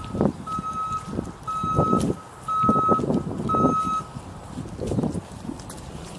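Safetran soft-tone electronic crossing bell at a light-rail pedestrian crossing, sounding a steady beep about once a second, then stopping about four seconds in. Irregular low rumbling noise runs underneath.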